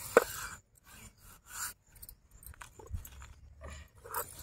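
Biscuits being broken up and handled: a sharp snap near the start, then scattered light crunches, taps and scrapes.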